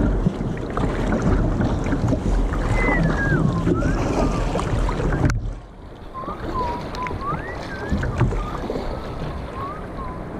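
Double-bladed paddle strokes and water washing along an Emotion Guster sit-on-top kayak, with wind on the microphone; the noise drops suddenly about five seconds in. Thin wavering whistle-like tones come and go over it.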